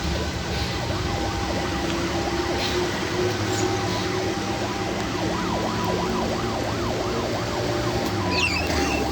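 Road traffic: engines running steadily, with a fast warbling siren-like sound rising and falling repeatedly through the middle.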